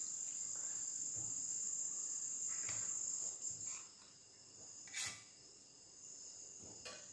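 Metal spatula spreading sticky jaggery-coconut filling across a steel plate: a few faint scrapes, then a short sharp click about five seconds in, over a steady high-pitched whine.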